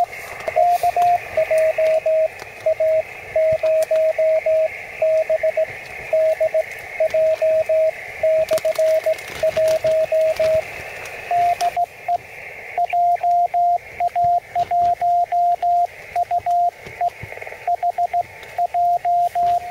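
Morse code from a portable QRP shortwave transceiver during an amateur-radio CW contact: a single steady tone keyed on and off in dits and dahs. It sits over a hiss of band noise that drops away about twelve seconds in.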